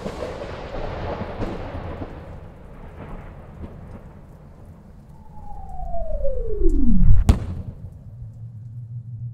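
Cinematic sound effects of a space pod coming down: a dense rumble, a whistle that falls steeply in pitch over about two seconds, and a heavy boom about seven seconds in, the loudest moment, followed by a low hum.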